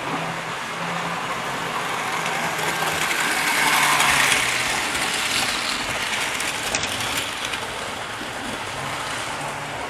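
Model railway train running past on the track close by, the sound of its wheels and motor swelling to its loudest about four seconds in, then fading as it moves away.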